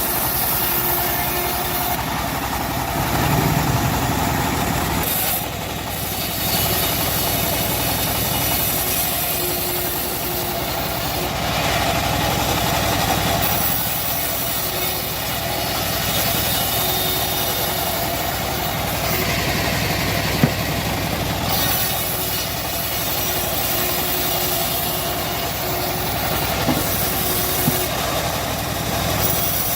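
Homemade bandsaw mill running steadily as it saws through a teak log, with a sharp knock about two-thirds of the way in and a couple of fainter ones near the end.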